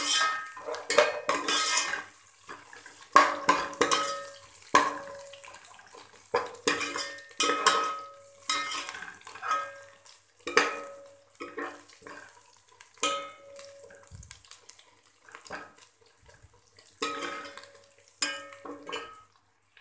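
Steel ladle scraping and knocking against a metal cooking pot as onions, ginger, garlic and green chillies are stirred in oil, the masala being fried down. The strokes come roughly once a second, unevenly, each leaving a short metallic ring.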